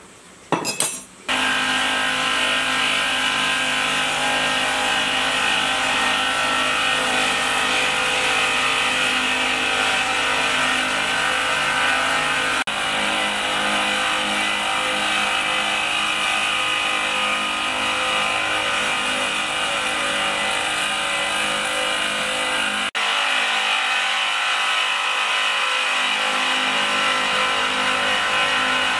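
Electric wet-grinding mill starting up about a second in, then running steadily with a motor hum and whine as it grinds soaked beans fed with water into a white slurry.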